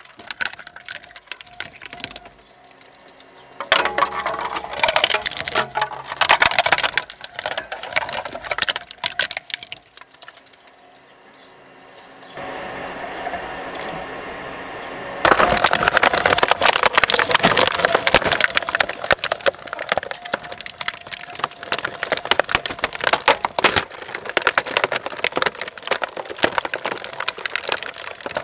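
Twin-shaft shredder's steel cutters cracking and crunching hard plastic toys, a dense, splintering crackle. In the middle it goes quieter, with a steady high whine from the machine. About fifteen seconds in, loud continuous crunching starts as a large plastic toy playset is drawn into the blades.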